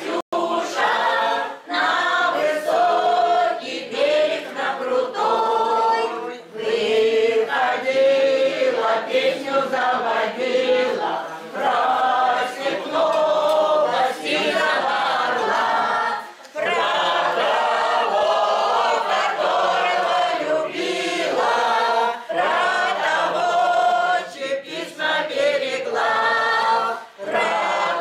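An amateur choir singing a song together around a table, in phrases with brief pauses between them.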